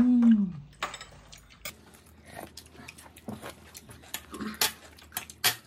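Spoons and chopsticks clicking and tapping against bowls during a meal, in scattered short strokes. At the start there is a brief voiced sound, about half a second long, that rises and then falls in pitch.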